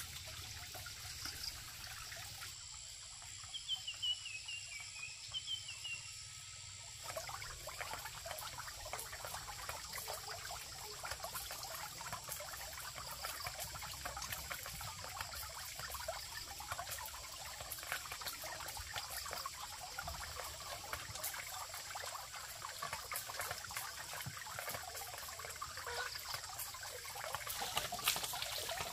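Water trickling and splashing, with a quieter break for a few seconds early on.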